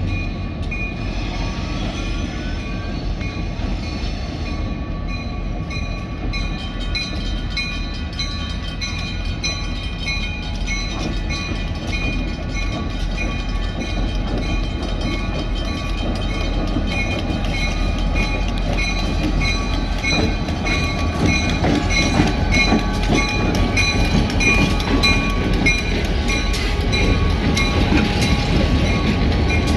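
Railroad crossing bell ringing over the low rumble of approaching EMD diesel freight locomotives. The train grows steadily louder, and the wheels clack over the rails through the second half.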